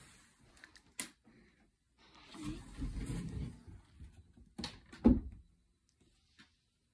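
Closet door and things being handled inside it: a sharp click about a second in, then rustling and bumping, and a loud knock about five seconds in.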